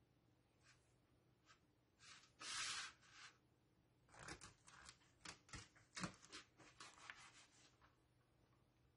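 Kitchen knife chopping oyster mushroom pieces on a thin plastic cutting mat: a run of quick, irregular knife taps on the mat for about four seconds, after a short scraping rustle around two seconds in.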